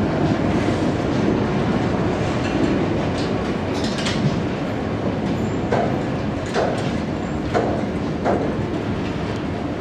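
Loaded hopper wagons of a freight train rolling slowly past: a steady rumble of steel wheels on the rails. In the second half come sharp clicks about a second apart.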